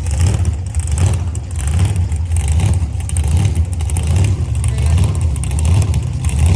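Low, steady rumble of motor vehicle engines running.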